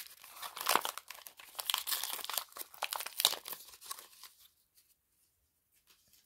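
Wrapper of an Upper Deck hockey card pack being torn open and crinkled by hand, a dense crackle of tearing that stops about four and a half seconds in.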